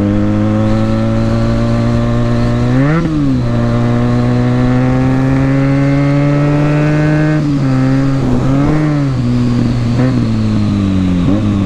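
Benelli motorcycle with an aftermarket exhaust under way: the engine note climbs steadily as it pulls, breaks at a gear change about three seconds in, and climbs again. After about seven seconds the throttle comes off and on a couple of times, and the note falls toward the end as the bike slows.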